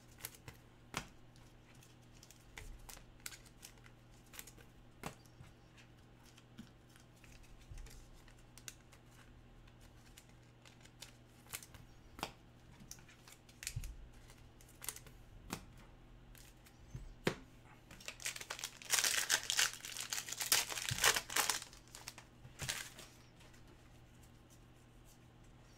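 Scattered light clicks of trading cards being handled, then about 18 seconds in a few seconds of crinkling and tearing as a 2020 Panini Mosaic football hobby pack's wrapper is ripped open.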